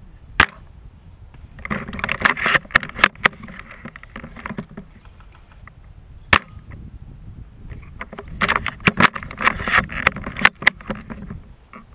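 Two single sharp airsoft gun shots, one just after the start and one about six seconds later. Between and after them come two stretches of rustling and scraping with small clicks, as the gun and camera move through brush.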